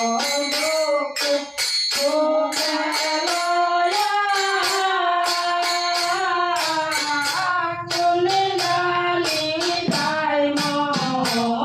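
Women singing a Bengali devotional kirtan in unison, with held, gliding notes. They are accompanied by a steady beat of small brass hand cymbals (kartal) and a brass plate struck with a stick.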